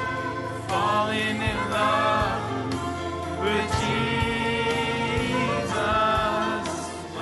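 A man singing a Spanish Christian worship song into a microphone, with musical accompaniment beneath the voice.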